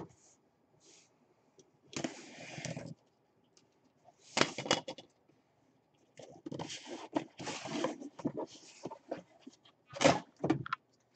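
A cardboard box being handled and opened by hand: separate bursts of scraping and rustling cardboard, with a sharp knock near the end.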